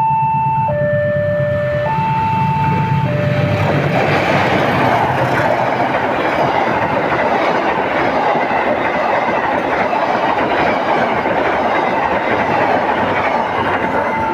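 A level-crossing warning alarm sounds two alternating tones, each held about a second, over the low rumble of an approaching train. About four seconds in, the train passes, its wheels and cars making a steady loud noise that covers the alarm. The two tones come back just at the end.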